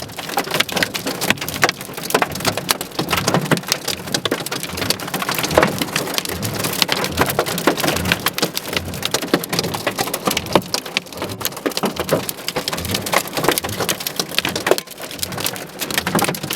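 Giant hailstones, golf-ball size and larger, pelting down hard in a supercell storm: a dense, very loud rattle of countless stone impacts mixed with heavy rain.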